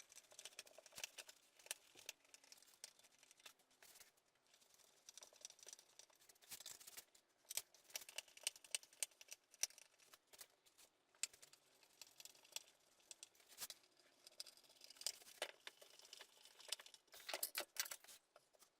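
Faint, irregular clicks, taps and rustles of small parts and wood being handled at a workbench.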